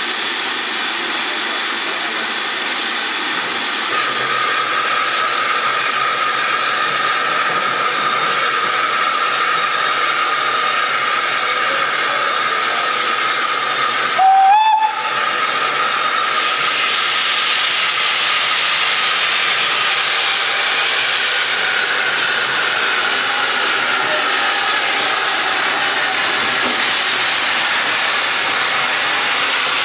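SE&CR steam locomotive standing with steam hissing steadily, a faint steady tone running through the hiss. About halfway through comes one short blast on the locomotive's steam whistle that slides up slightly in pitch.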